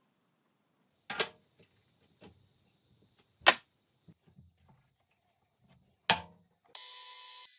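Sharp metallic clanks and knocks, four loud ones a second or more apart, from a brass nut being fitted into the chuck of a small metal lathe and the lathe being set up. Near the end a steady high-pitched tone starts suddenly.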